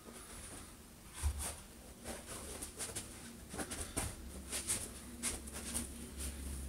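Clothing rustling and crackling as lace and nylon lingerie is pulled and adjusted by hand, in a string of short irregular crackles with a few soft low bumps.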